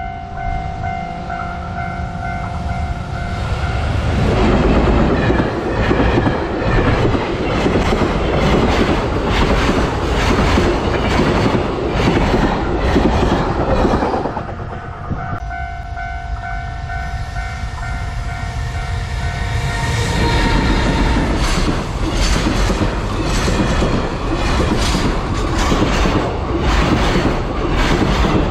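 Level-crossing warning bell ringing as JR Freight trains hauled by EF210 electric locomotives pass, wheels clattering over the rail joints. The train noise swells about 4 s in and drops away about 14 s in, leaving the bell. A train then passes loudly again from about 20 s, with a rhythmic clickety-clack.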